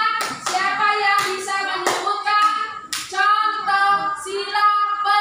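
Young children singing a song together, with a few sharp hand claps along the way.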